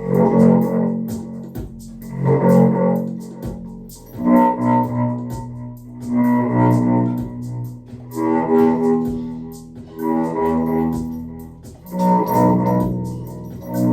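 Instrumental music: sustained pitched tones in phrases that swell and fade about every two seconds.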